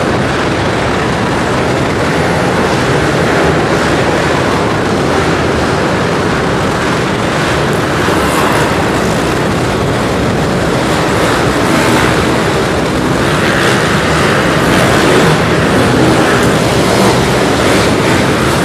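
Several pit bike engines revving and running as a pack races around an indoor dirt track, a dense, steady drone that grows a little louder in the second half.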